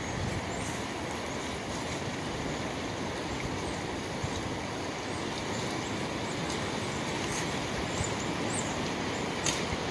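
Steady rushing of a small woodland brook, with a few faint ticks and a brief click near the end.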